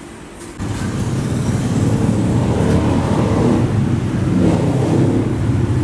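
A vehicle engine running steadily, starting abruptly about half a second in.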